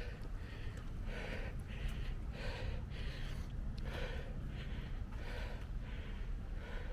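A runner's heavy breathing, one breath roughly every two-thirds of a second, over a steady low rumble.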